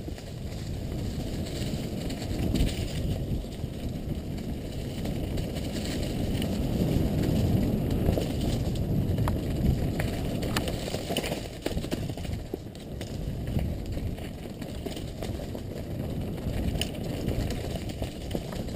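Wind rumbling on a helmet-mounted camera's microphone, mixed with mountain bike tyres rolling over a dirt and leaf trail at speed, growing louder over the first few seconds. Scattered clicks and rattles come through the rumble.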